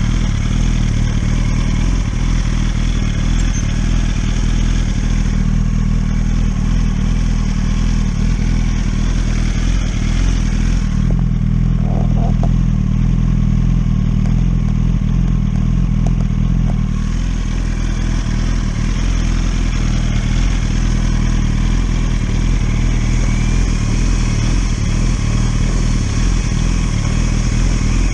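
1000 cc sport motorcycle's inline-four engine running steadily at an even, low speed, its tone changing for several seconds around the middle.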